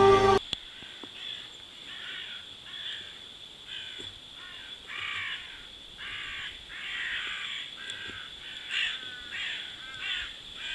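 Intro music cuts off just after the start, then birds call over and over in short harsh notes, over a steady high-pitched tone.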